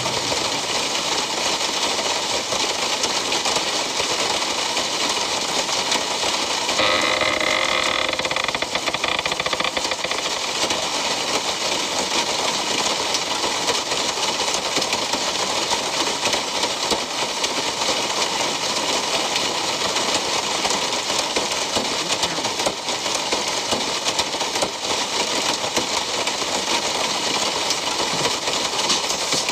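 Steady, loud rumbling hiss of suspense sound design from a horror film's soundtrack, with a brief pitched tone over it from about seven to nine seconds in.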